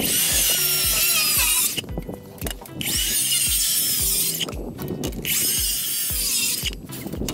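Makita circular saw cutting through pressure-treated framing lumber three times, each cut about a second and a half long with a whining blade whose pitch wavers under load. Background music with a steady beat runs underneath.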